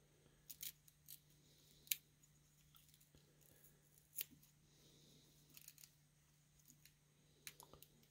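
Faint, sparse clicks and ticks of small metal carburetor parts being handled and separated by hand, the sharpest about two seconds in.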